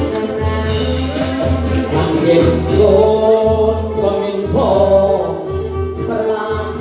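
Live Kantrum, the Northern Khmer folk music of Surin: a man sings into a microphone over a steady drum beat of about two strokes a second and melody instruments, played through a PA system.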